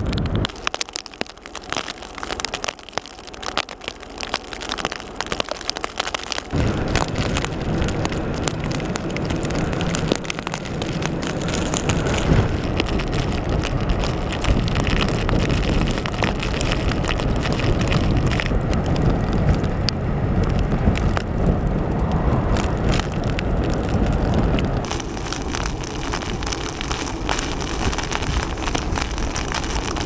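Strong blizzard wind blowing across the microphone as a heavy, steady rush of noise, lighter for the first few seconds.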